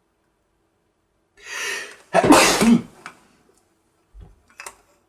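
A man sneezes once: a short breathy intake about a second and a half in, then a loud sneeze with a falling pitch. A few faint knocks follow near the end.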